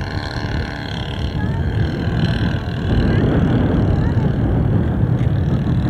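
A radio-controlled model airplane's motor running as the plane flies past low and climbs away. Strong wind buffets the microphone in a heavy low rumble that gets louder about halfway in.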